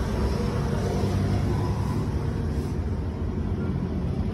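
Royal Enfield Himalayan's single-cylinder engine running steadily.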